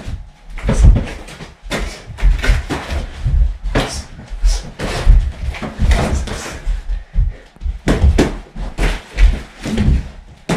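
Boxing gloves smacking onto bodies and guards, mixed with feet stamping on the floor: an irregular run of thumps, sometimes several a second.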